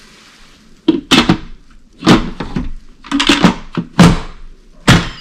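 Instant Pot pressure cooker lid being set on the pot and twisted shut: about half a dozen sharp plastic-and-metal clunks and clacks, some in quick pairs.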